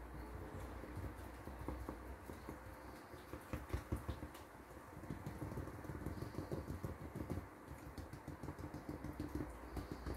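Silicone tea-light moulds full of wet casting plaster being tapped and jiggled on a glass tabletop: a run of quick, light knocks. The tapping agitates the plaster to bring trapped air bubbles to the surface.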